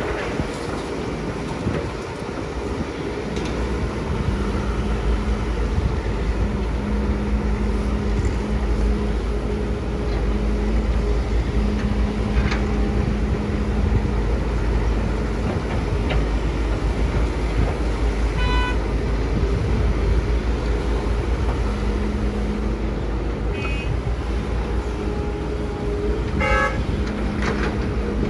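Komatsu PC200 excavator's diesel engine running under hydraulic load as it digs, a steady low rumble whose pitch lifts and settles with the work. Short horn beeps sound a few times in the second half.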